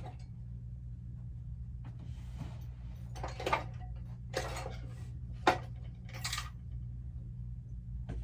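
Small metal tools being handled and rummaged through: a few short clattering, rustling noises and one sharp click about five and a half seconds in, over a steady low hum.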